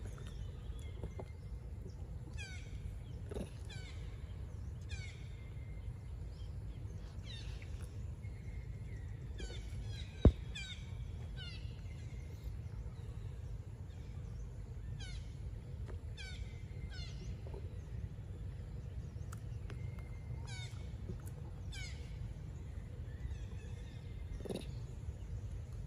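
High, short chirping squeaks recurring every second or so, over a steady low rumble, with one sharp knock about ten seconds in.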